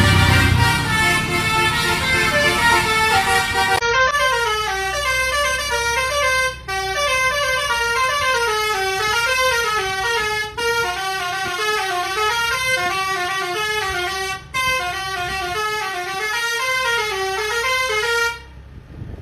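Indonesian bus 'telolet' multi-tone musical horn: a loud held chord of horn tones, then about four seconds in the horns play a rising-and-falling tune that repeats about every four seconds. The tune cuts off suddenly near the end.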